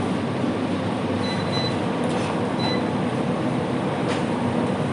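Steady rushing noise of a working commercial kitchen around the plov cauldron, even and unbroken, with a couple of faint clicks.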